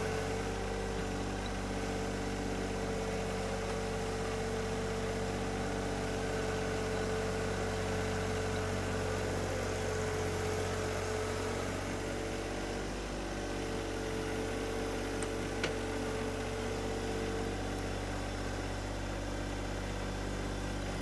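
John Deere 1025R compact tractor's three-cylinder diesel engine running steadily while the front loader works soil, with a steady mid-pitched tone over the engine note. One brief click about three-quarters of the way through.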